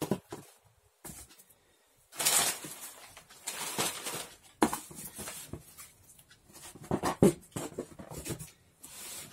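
Packaging being handled: a few short rustling bursts and some sharp clicks of plastic and cardboard as one boxed kit is set down and the next is picked up.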